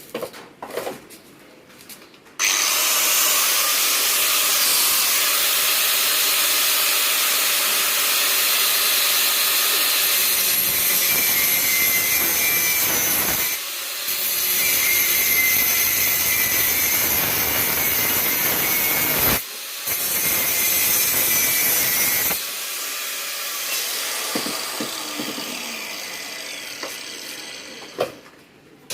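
An electric power tool running steadily, stopping briefly twice, then switched off about twenty-two seconds in and winding down.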